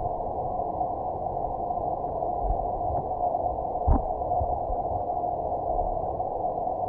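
Muffled underwater ambience recorded through a camera's waterproof housing in a pool: a steady dull hiss with scattered low thuds, and one sharper knock about four seconds in.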